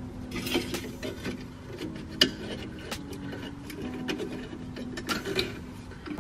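Irregular light metal clicks, taps and scraping as an exhaust band clamp and thin aluminium shims are worked into place around a foil-taped exhaust pipe.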